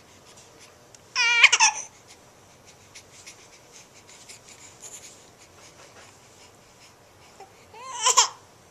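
Baby babbling: two short high-pitched vocal squeals, one about a second in and one near the end, with faint soft clicks between them.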